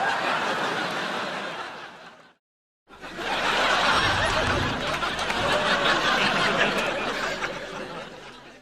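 Sitcom studio audience reacting with a collective 'oooh' mixed with laughter. One clip fades out about two seconds in, and after a short silence a second one swells up, holds and fades away near the end.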